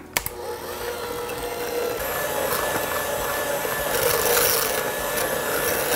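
KitchenAid electric hand mixer with a whisk attachment running in a glass bowl, whipping heavy cream toward stiff peaks, a steady whir whose pitch changes about two seconds in.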